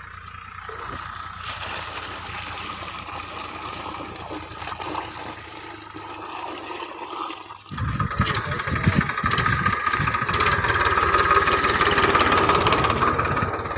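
A tractor's diesel engine running, faint and distant at first. From about eight seconds in it is close and much louder as the tractor pulls a cultivator through the soil.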